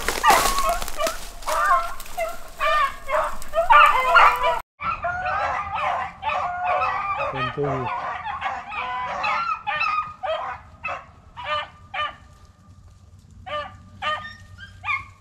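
Pack of beagles baying on a rabbit's trail, several dogs' long bawls and short chop notes overlapping. The sound drops out for an instant just under five seconds in, then the baying resumes as shorter, clipped calls.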